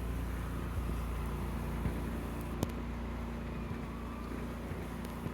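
Snow blower engine running steadily in the distance: a low rumble with a faint steady hum, and a single sharp click a little past halfway.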